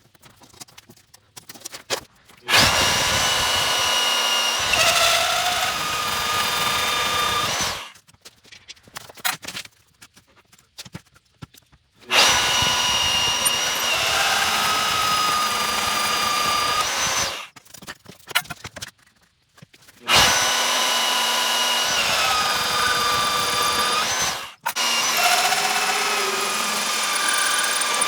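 Electric drill boring holes in a metal plate: three runs of about five seconds each with a high whine from the bit cutting, separated by short pauses with light clicks and knocks.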